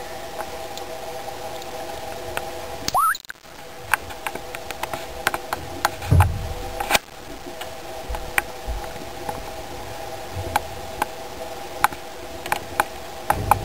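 Small pet rodents moving about in cloth bedding: many scattered sharp clicks and soft rustles over a steady hum. There is a low thump about six seconds in.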